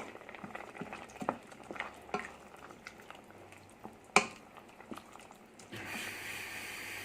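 Creamy mushroom sauce simmering in a pan while a utensil stirs it, with light clicks against the pan and one sharp knock about four seconds in. Near the end the sound switches abruptly to a steadier hiss.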